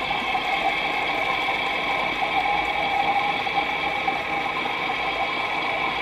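Toy clothes dryer running with a steady whir as its drum tumbles a load of doll clothes, with a few held tones over it.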